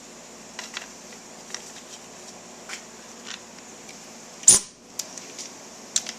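Hand tools and small metal parts handled during motorcycle work: scattered light clicks, then one sharp metallic clink with a short high ring about four and a half seconds in.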